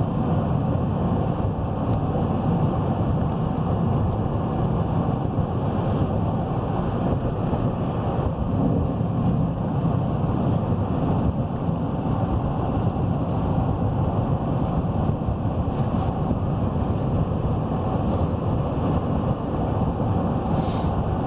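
Steady road and drivetrain noise inside the cab of a 2017 Chevy Silverado 3500 pickup cruising at highway speed, with a few faint clicks along the way.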